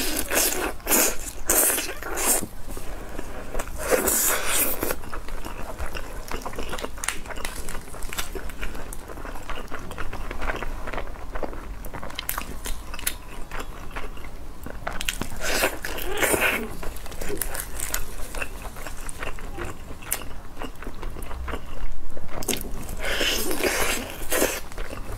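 Close-miked eating of spicy roast chicken: skin and meat bitten and torn from the bone, with moist chewing throughout. Louder bursts of biting and tearing come at the start, about four seconds in, around sixteen seconds and near the end.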